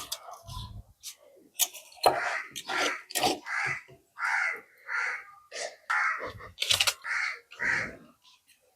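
A crow cawing over and over, about eight harsh calls in a row, with a few sharp clicks in between.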